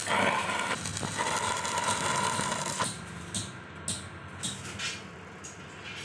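Electric arc welding on thin square steel tube: a dense crackle of the arc that stops about three seconds in, followed by a few short, sharp ticks.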